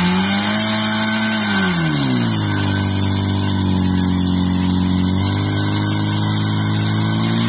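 Portable fire pump's petrol engine running at high revs, pumping water into the attack hoses. The revs sag about two seconds in, then hold steady and rise a little near the five-second mark.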